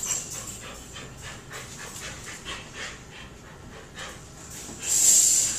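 Dog panting in quick breathy strokes, with a louder hiss near the end.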